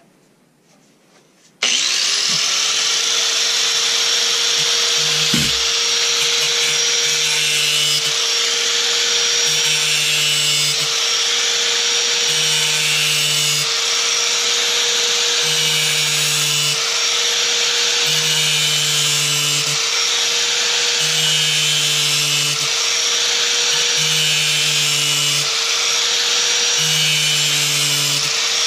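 Handheld angle grinder switched on about two seconds in, its whine rising quickly to full speed and then running steadily as it grinds the edge of a steel wood-chipper blade to sharpen it.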